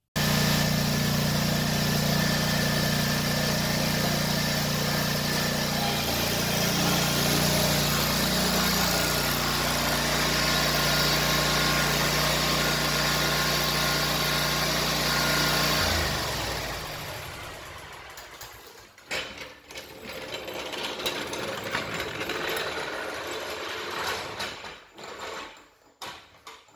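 Small gas engine running steadily with a strong rush of air and a pitch shift partway through. It winds down and stops about sixteen seconds in, followed by scattered knocks and rustling.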